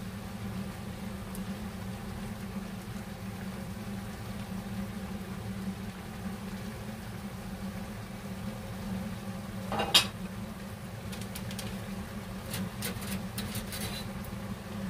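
A pepper shaker shaken over a bowl of chicken feet against a steady low hum. About ten seconds in there is one sharp click, followed by a few light taps.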